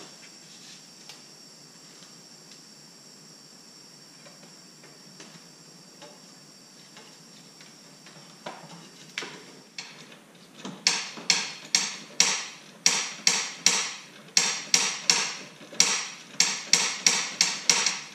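Hand-tool work on parts in a car's engine bay. A faint, steady high whine comes first, then about eleven seconds in a run of sharp metallic knocks begins, roughly three a second with short pauses, each ringing briefly.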